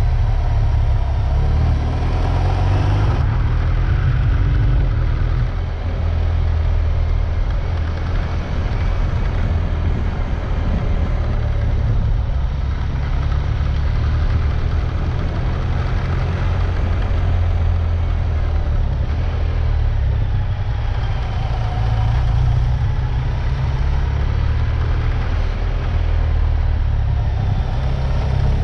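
A motor vehicle's engine running steadily during an off-road drive, with a strong low rumble underneath. There are no sharp changes in pitch or level.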